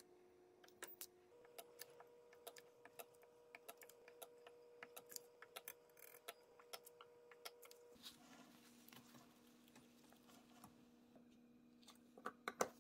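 Faint sharp snaps, one or two a second, from a handheld spot welder's twin probes firing current pulses that weld nickel strip onto lithium-ion cells.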